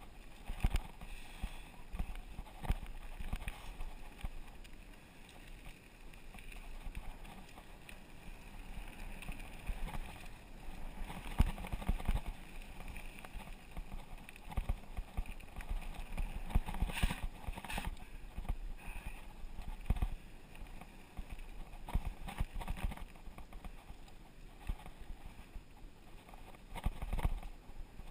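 Mountain bike riding down a dirt singletrack: irregular knocks and rattles as the bike jolts over bumps, over a steady low rumble of tyres and wind.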